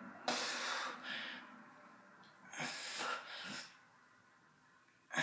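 Heavy, forceful breathing from exertion during dumbbell curls. A sharp breath comes about every two and a half seconds, each followed closely by a shorter one, three times.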